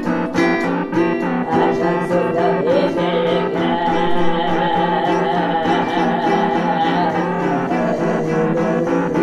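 Balalaika strumming a steady rhythm in a live folk song, with a held, wavering melody line over it from about three seconds in.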